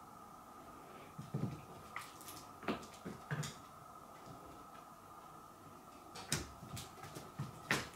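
Scattered light knocks and rattles, about six over a few seconds, as a cat moves in and out of the gap of a wooden sliding door. A faint steady tone runs underneath.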